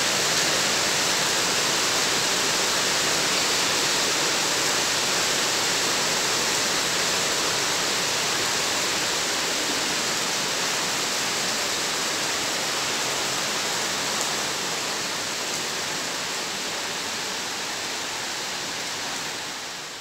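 Heavy rain pouring steadily onto wet tiled paving and garden, a dense even hiss that eases a little near the end.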